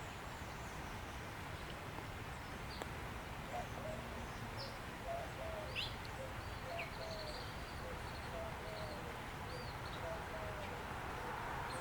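Faint outdoor bird sounds: small birds give scattered short chirps and a quick falling whistle over a steady low rumble. Through the middle there is a run of soft, short, low notes.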